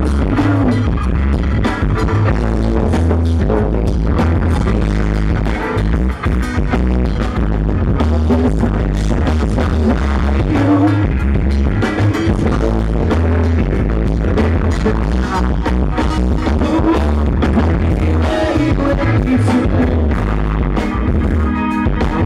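Live rock band playing loudly: electric guitars, bass, drums and keyboard, with a male lead vocalist singing over a heavy, pulsing bass line.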